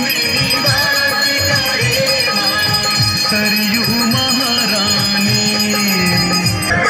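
Devotional music: a slow, long-held melody that steps in pitch, with bells jingling.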